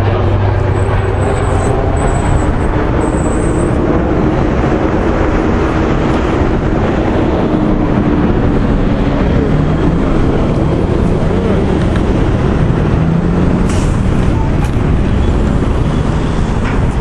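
A heavy vehicle's engine running steadily close by: a loud, continuous low rumble whose pitch drifts slightly.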